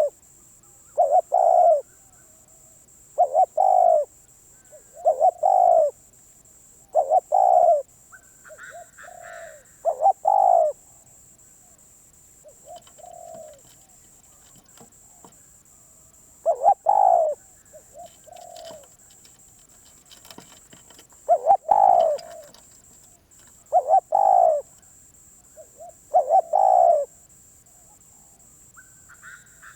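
Spotted dove (nok khao yai) cooing: loud, low hooting coos, mostly in pairs, repeated every second or two, with a quieter spell in the middle. The bird is a wild-caught dove getting back into voice.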